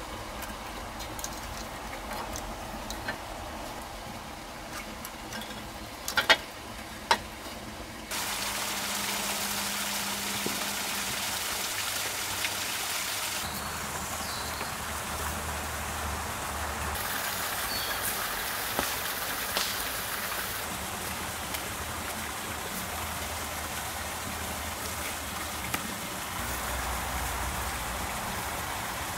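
Steady rushing noise of running water, shifting in level and tone at several abrupt cuts. There are a few sharp clicks, the loudest two about six and seven seconds in.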